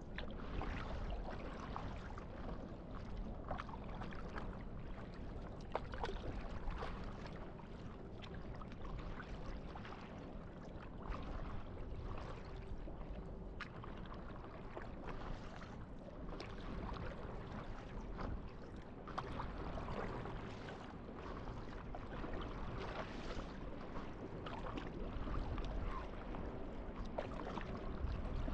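Water lapping and trickling against a paddleboard on calm sea, with many small splashes and drips close by and a faint low rumble underneath.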